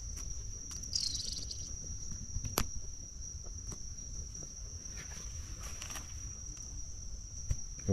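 Insects trilling steadily, one unbroken high-pitched tone, with a single sharp click about two and a half seconds in.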